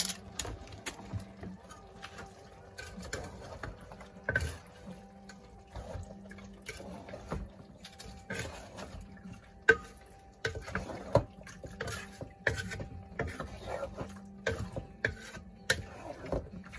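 A wooden spoon stirring wet chicken stew in a cooker pot, with irregular knocks and scrapes of the spoon against the pot and the stew's wet sloshing. A faint steady low hum runs underneath.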